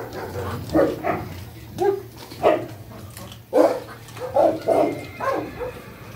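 Dogs barking: about a dozen short, irregularly spaced barks, over a low steady hum.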